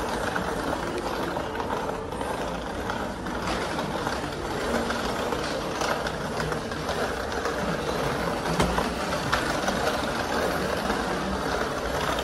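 Shopping cart rolling steadily over a tiled supermarket floor, its wheels and wire basket giving a continuous rattling rumble under the store's background noise.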